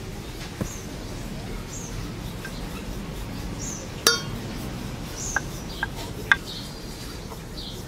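Wooden rolling pin clicking and knocking against a marble rolling board as dough is rolled out, with one sharper ringing clink about four seconds in and a few lighter clicks after it. Small birds chirp faintly in the background.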